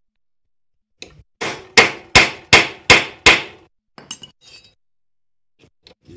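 A hammer strikes a metal driver bit held in a stripped Phillips bolt head six times in quick succession, sharp ringing metal-on-metal blows about a third of a second apart, driving the bit in so it bites the damaged head. A few light metallic clinks follow.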